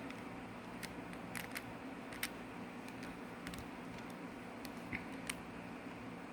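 Scattered small, sharp plastic clicks and taps as Rubik's cube pieces are handled and snapped onto the cube's core, over a faint steady hum.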